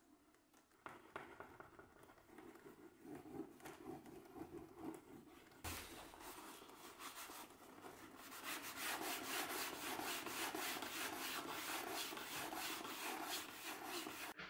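A cloth rubbing over the surface of a black vegetable-tanned leather bag: scattered scratchy wipes at first, then from about eight seconds in a steady run of quick back-and-forth buffing strokes, several a second.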